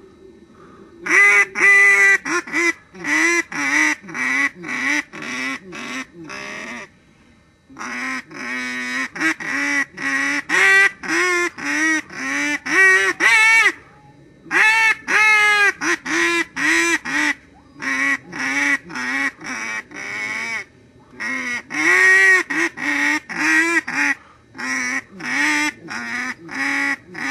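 A tune played on a duck call: quick runs of short honking quack notes that shift up and down in pitch, in phrases with short pauses between them.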